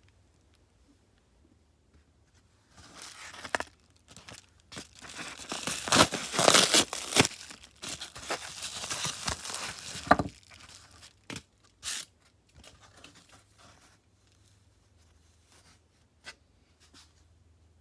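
Crinkling, tearing handling noise, loudest in the middle, followed by a few scattered sharp clicks and taps.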